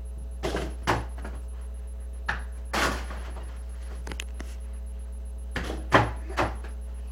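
A small indoor basketball bouncing and striking the hoop: about eight irregular knocks and thuds, the loudest near six seconds in.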